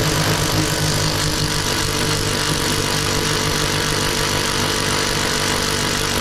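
Electric power tool running steadily: a loud, even motor hum with a hissing, grinding noise over it.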